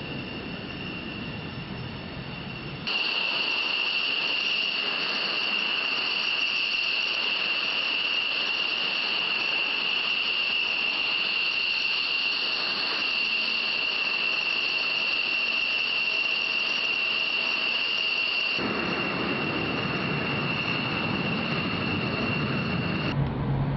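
Jet fighter engine running with a steady high-pitched whine over a rushing hiss. The sound changes abruptly about three seconds in and twice more near the end, as separate stretches of engine noise follow one another.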